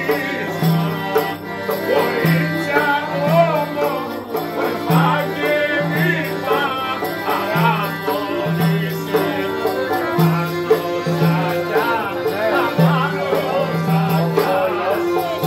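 Live folk dance music: a clarinet plays a wavering, ornamented melody over accordion and a hand-struck frame drum, with a low bass note pulsing in a steady rhythm.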